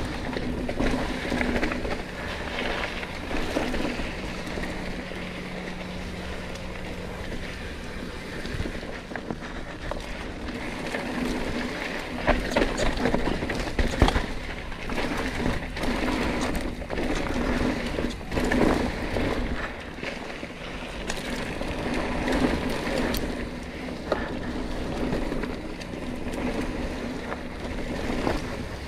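Yeti SB100 mountain bike riding down a dirt trail: steady tyre and wind noise with the bike rattling, and sharp knocks over bumps, the loudest around halfway through.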